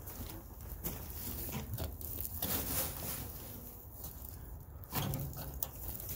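Clay soil tipped out of a wheelbarrow, pouring and sliding onto a mound of soil in rough, crackly rustles with small knocks, with a few heavier thuds about five seconds in.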